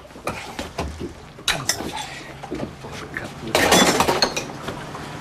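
A few hammer knocks on a screwdriver held against a metal wall safe, then a loud clatter of metal tools being rummaged in an open metal case.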